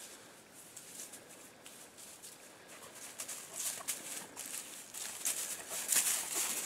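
Footsteps rustling and crunching through dry, matted grass: a quick string of soft crackles that comes thicker and louder from about halfway through.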